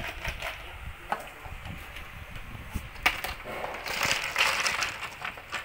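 Small plastic building bricks clicking as they are handled, then a tub of them tipped out onto a plastic tray, clattering and rattling for about a second near the four-second mark.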